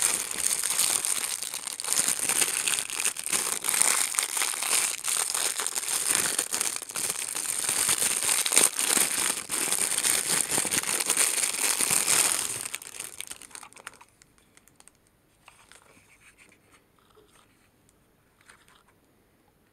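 Plastic packaging crinkling and rustling as it is handled, continuous for about twelve seconds and then stopping, followed by a few faint clicks.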